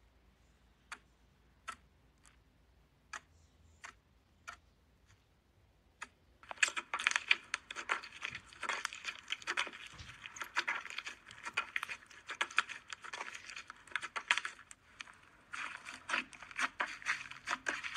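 Slime being pressed and squeezed by hand: a few scattered sticky clicks at first, then from about six seconds in a dense, continuous crackling and popping as the slime is pushed flat under the fingers.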